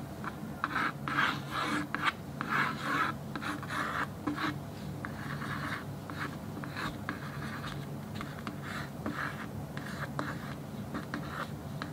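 Pencil sketching on a stiff shikishi art board: a run of quick scratchy strokes, longer and heavier for the first few seconds, then shorter, lighter strokes.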